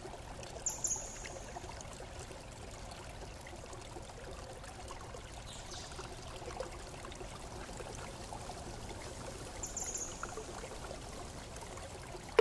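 A steady hiss like running water, with two short high swishes, one about a second in and one near the end.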